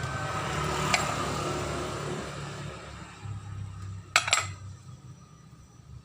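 A steady noise that fades away, then two quick metallic clinks just after four seconds in, as metal parts or tools knock together.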